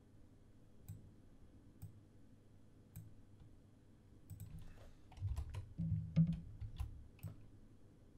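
Computer mouse and keyboard clicks while working in photo-editing software: a few single clicks about a second apart, then a quick flurry of clicks and key taps with dull low knocks about five to seven seconds in.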